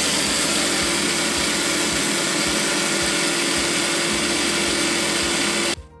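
Electric mixer grinder (mixie) running at full speed, grinding soaked black gram (urad dal) with a little water into a fine batter, with a steady motor hum under the noise. It is switched off shortly before the end and the sound cuts out suddenly.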